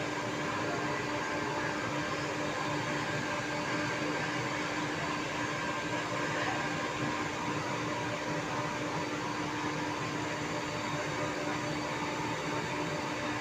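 Machinery running steadily: an even hiss with a constant low hum, unchanging throughout.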